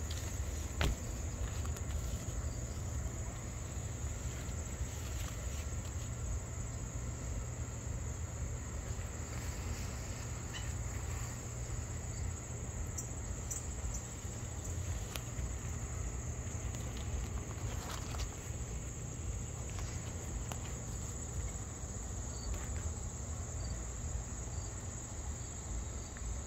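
Insects trilling steadily in one continuous high-pitched tone, over a constant low rumble.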